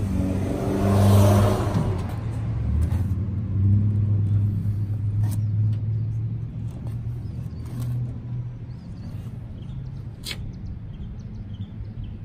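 Motor vehicle engine running, loudest about a second in and then slowly fading over the next several seconds. Two sharp clicks come later.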